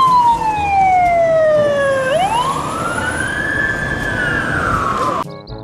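Fire engine siren wailing: a long falling tone, then a quick rise into another slow rise and fall. It cuts off shortly before the end.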